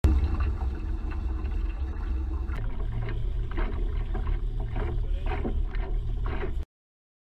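Water rushing and splashing along the hulls of a pedal-driven kayak catamaran under way, with wind buffeting the microphone. The sound changes about two and a half seconds in and cuts off abruptly near the end.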